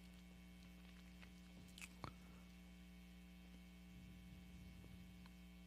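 Near silence: a steady electrical mains hum, with a couple of faint clicks about two seconds in.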